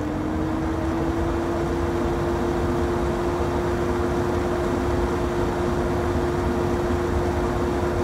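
Loud kitchen exhaust fan running steadily: a constant motor hum holding one pitch over an even rush of air.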